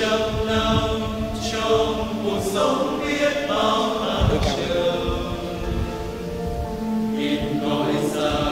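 A choir singing a slow sacred chant, many voices holding long notes.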